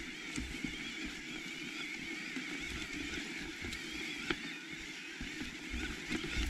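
Electric mountain bike ridden over a grassy, stony mule track: the motor's whine wavers over the rattle of tyres and bike, with a few short knocks from bumps and wind rumbling on the microphone.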